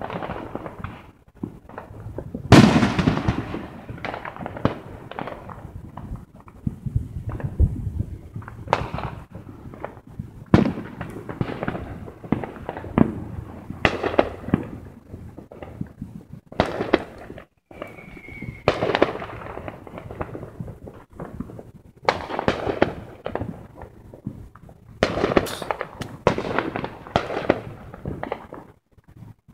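Fireworks going off in an irregular string of bangs. The loudest comes about two and a half seconds in, and the bangs trail off in echoes.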